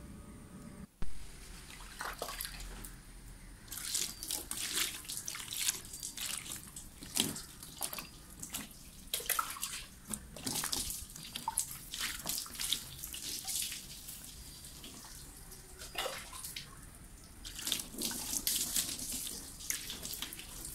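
Water splashing and dripping over a scooter's plastic body panels and floorboard and onto wet floor tiles as it is washed by hand, in uneven splashes. A brief sharp knock about a second in.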